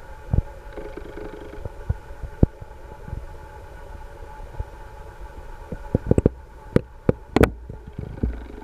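Faulty recording: irregular thumps and clicks over a low rumble, with a cluster of sharper crackles about six to seven and a half seconds in.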